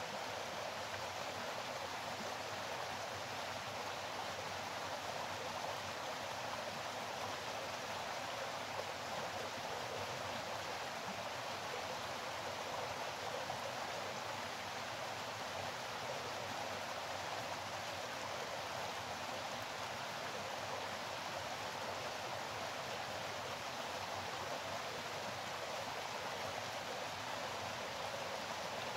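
Running water rushing steadily, as of a stream, with no breaks or separate events.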